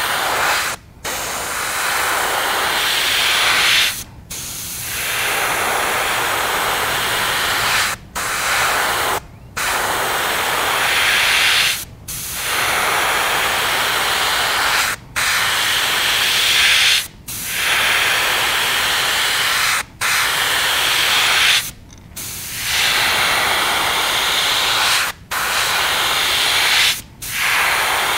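Gravity-feed airbrush spraying opaque black paint at low pressure: a steady hiss of air, cut off for a moment every two to four seconds as the trigger is let go between passes.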